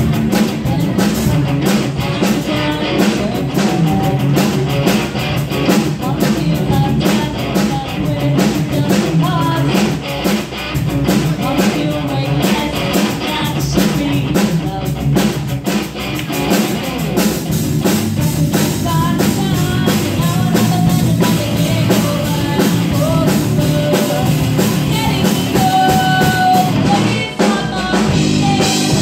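Live rock band playing: a female vocalist singing into a microphone over electric guitar, bass guitar and a drum kit.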